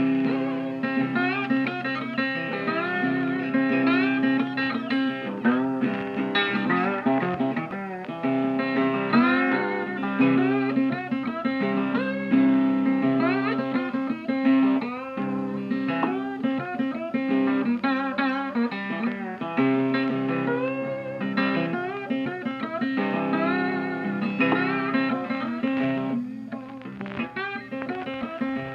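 Background music: a plucked guitar playing melodic lines with sliding notes over a steady low note.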